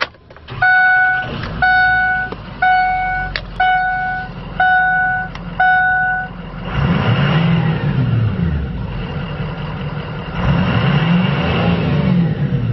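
Ford E350's diesel V8 (6.0L Power Stroke) starting with a few clicks from the key, then idling while the dashboard warning chime dings six times, about once a second. From about six and a half seconds in the engine is revved twice, rising and falling in pitch, to about 3000 rpm.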